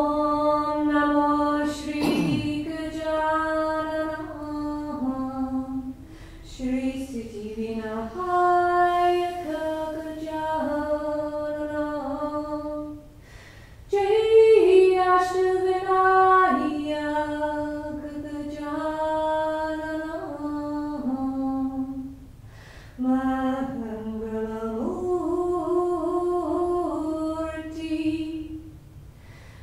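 A woman singing a devotional chant unaccompanied, in slow phrases of long held notes, with short breath pauses between phrases.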